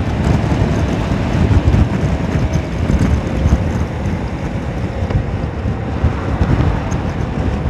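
Wind rushing and buffeting over the microphone while riding a Honda Forza 300 scooter, with the single-cylinder engine's steady note faintly beneath it.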